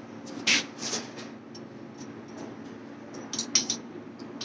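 Sharp metal-on-metal taps of a hammer on a punch, knocking off the tang of a HeliCoil thread insert just installed in an engine block: two taps about half a second and one second in, then three quick taps a little past three seconds.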